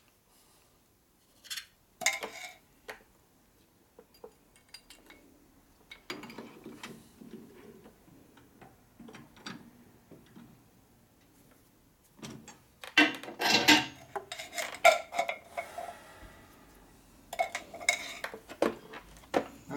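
Metal tools and parts clinking and clattering as an external hone is fitted and oiled on a lathe: scattered light clicks, then two busier bursts of clatter about thirteen and eighteen seconds in.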